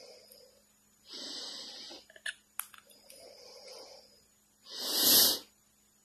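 Breathy huffing sounds that alternate quieter and louder like breaths, the loudest a sharp sneeze-like huff about five seconds in, with a few small clicks just past two seconds.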